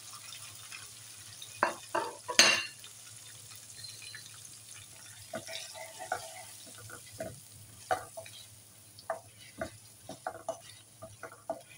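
Potato chunks frying in oil in a non-stick kadai, sizzling faintly, while a wooden spoon stirs in the freshly added dry spices with irregular scrapes and knocks against the pan. A single loud knock about two and a half seconds in.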